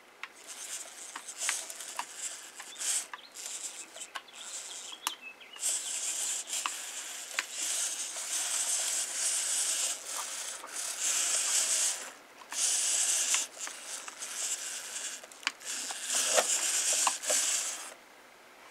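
Hobby servo motors in a 3D-printed quadruped robot dog whirring in short, high-pitched bursts as its legs move from pose to pose, with scattered light clicks. The bursts stop and start every second or so and die away shortly before the end.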